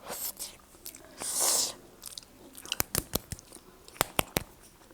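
A person eating close to the microphone. First chewing with two short hissy bursts, then a run of sharp, wet clicking mouth sounds.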